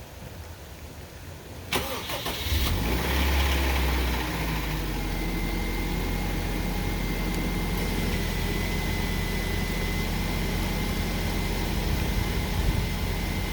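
2005 Honda Civic DX's 1.7-litre four-cylinder cranked by the starter about two seconds in, catching after about a second, running briefly higher, then settling into a steady idle with a thin high whine. This is the first start after a rod bearing repair.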